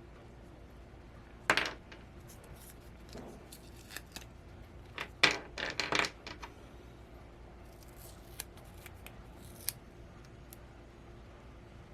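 Small parts being handled and worked by hand, in short scraping, snipping sounds: a sharp one about a second and a half in, a quick cluster around five to six seconds, then a few light ticks.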